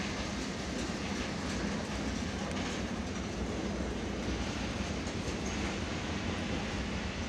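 Freight train of flat wagons carrying tank containers rolling past at a steady speed: a continuous rumble of wheels on rails with occasional clacks over the rail joints.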